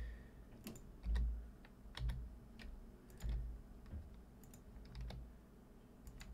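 Computer keyboard keystrokes and clicks at an uneven pace, several with a dull low thud, as shortcut keys are pressed to edit 3D shapes in Blender.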